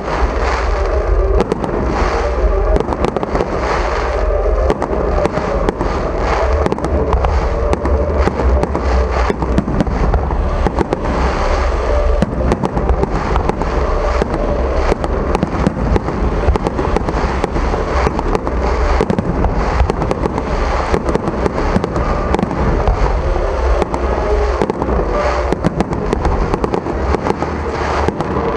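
Fireworks display: an unbroken barrage of bangs and crackling bursts, many in each second, over a deep rumble of booms.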